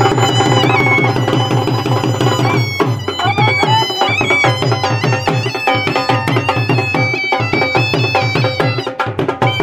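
A Punjabi dhol beats a fast, steady rhythm under a shehnai playing a reedy melody of held notes with bends and slides between them.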